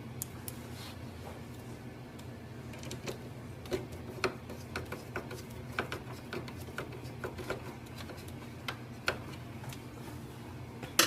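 Light, irregular clicks and taps of small plastic printer parts being handled, over a low steady hum.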